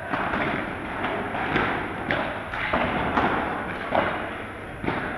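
Padel rally: a series of sharp knocks from solid padel rackets striking the ball and the ball bouncing, coming irregularly about one or two a second.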